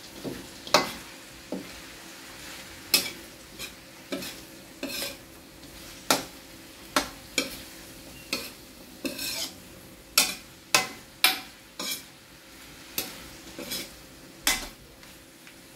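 Metal spatula scraping and clinking against a wok while stir-frying carrots and shrimp, in irregular strokes about one or two a second, over a light steady sizzle.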